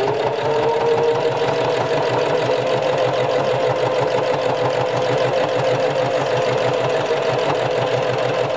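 Electric domestic sewing machine running continuously while topstitching fabric over elastic. Its motor whine rises briefly as it comes up to speed in the first second, then holds steady over the fast, even chatter of the needle strokes.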